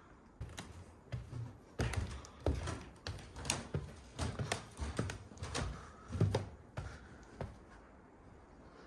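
Footsteps climbing a dusty wooden staircase, heavy thuds on the bare treads at about two steps a second, stopping about a second before the end.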